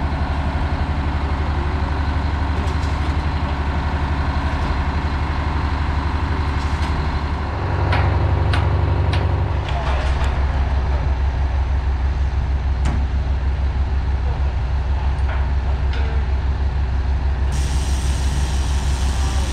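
Heavy diesel engine running steadily with an even low pulse; about eight seconds in its note rises and grows louder for roughly two seconds, then settles back. A few sharp knocks come in the middle.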